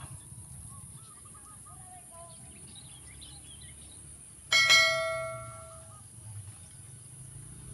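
A single bell-like 'ding' sound effect about four and a half seconds in, ringing out and dying away over about a second and a half. It accompanies a subscribe-button graphic. Under it a steady high insect drone runs throughout, with a few faint bird chirps before the ding.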